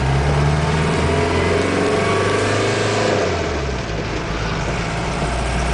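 1986 Isuzu Trooper turbo-diesel engine running under way, heard from inside the cab. Its note climbs over the first few seconds, then drops to a lower pitch about three seconds in.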